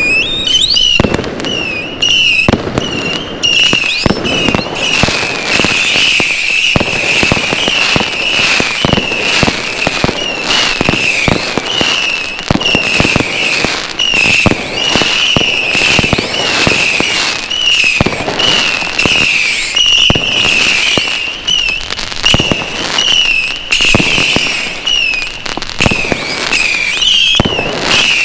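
Fireworks: a continuous shrill whistling from whistlers, wavering around one pitch with short falling swoops, over a dense run of sharp bangs and crackling from firecrackers and salutes.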